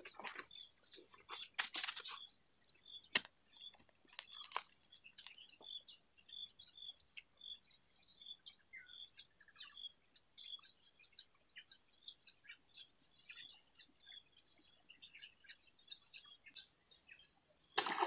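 Riverside insects and small chirping calls: short chirps repeating about twice a second, a few sharp clicks near the start, and a high insect buzz that swells over the second half and cuts off suddenly near the end. Right at the close, a brief splash as a fish strikes the live bait at the float.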